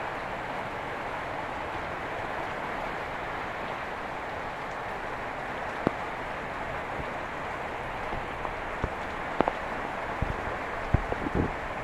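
Steady heavy rain falling, a continuous hiss, with a few sharp taps of heavier drops from about halfway through, more of them near the end.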